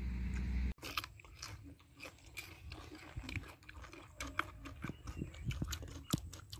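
Close-up chewing of crispy deep-fried fish: a run of small, irregular crunches and wet mouth clicks. It follows a steady low rumble that cuts off abruptly under a second in.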